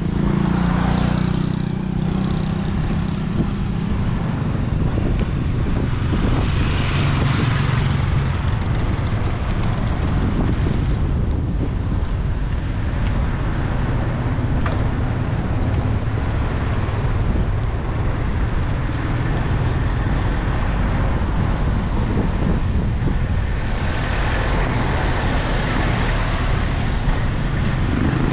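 Road traffic heard while cycling: vehicles pass in swells, about a second in, around seven seconds in and near the end, over a steady low rumble.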